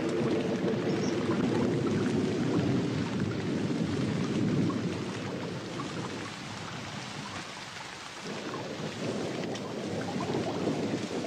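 Heavy rain falling, with a low thunder rumble that eases off about halfway through and builds again near the end.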